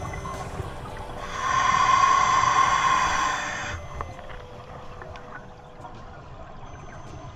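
Scuba regulator exhaust heard underwater: a loud burst of a diver's exhaled bubbles starting about a second in and lasting some two and a half seconds, then a quieter background hiss.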